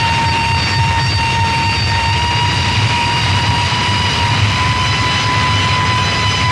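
Harsh noise music: a dense, loud wall of rumbling noise with a steady whining tone near 1 kHz on top, its pitch creeping slowly upward.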